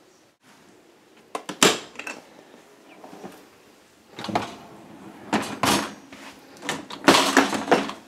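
Maytag dishwasher door opened and its wire dish rack rolled out on its track: a string of clattering rattles and knocks, the loudest near the end.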